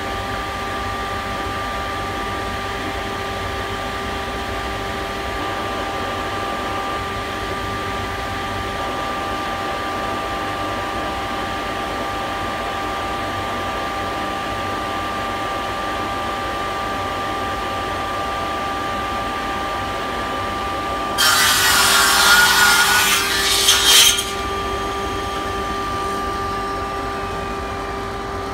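Table saw running steadily, its blade then cutting a scarf through a strip of 15 mm birch plywood held in a clamped jig: one loud cut of about three seconds, about three quarters of the way through, after which the saw runs on.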